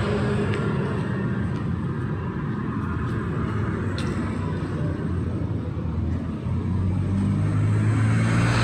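Road traffic passing on a city street: a steady rumble of engines and tyres, with a vehicle's engine growing louder over the last two seconds as it comes closer.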